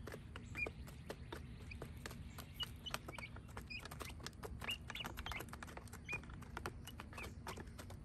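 Month-old chicks pecking feed from the plastic tray of a chick feeder: rapid, irregular clicks of beaks on plastic, with occasional short, high peeps. The chicks are hungry, having gone unfed for hours.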